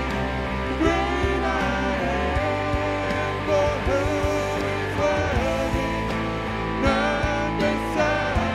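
Live worship band playing: a male lead voice with female backing singers over acoustic and electric guitars and keyboard, with a low bass line and regular percussive hits.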